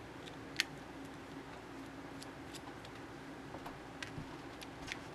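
Small metal precision screwdriver clicking and ticking against the plastic housing of a cordless precision screwdriver as it is being prised apart, with one sharp click about half a second in and a few fainter ticks after.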